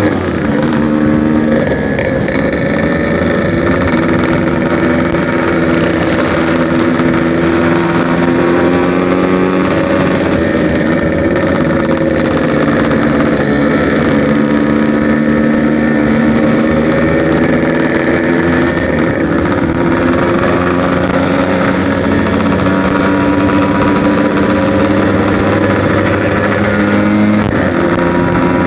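Yamaha RX-King 135cc single-cylinder two-stroke motorcycle running through a 'packing power' aftermarket exhaust while riding, its pitch rising and falling several times with throttle and gear changes.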